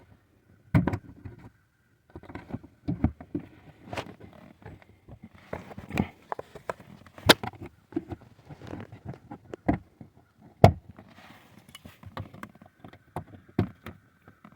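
Irregular plastic clicks and knocks as an under-dash trim cover and its push-in grommets are pressed back into place, with a few sharper snaps among them.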